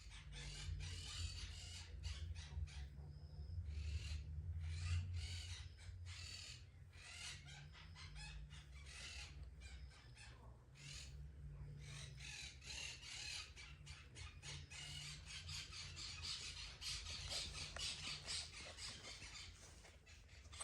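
A cat licking its fur while grooming itself: quick runs of short, rasping tongue strokes, several a second, pausing briefly now and then, over a faint low hum.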